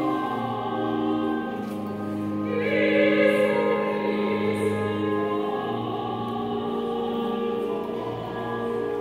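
A slow sacred hymn sung with instrumental accompaniment, in long-held notes; the singing swells louder about three seconds in.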